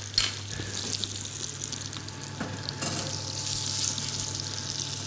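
Food sizzling in a hot frying pan while it is turned with tongs, with a few short clicks of the tongs against the pan; the sizzle grows louder about three seconds in. A low steady hum runs underneath.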